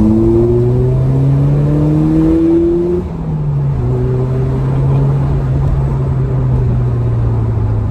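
Ford Fiesta ST150's 2.0-litre four-cylinder engine through its newly fitted exhaust, heard from inside the cabin. Revs rise under acceleration, drop at an upshift about three seconds in, then the engine pulls on at steadier revs, easing off slightly near the end.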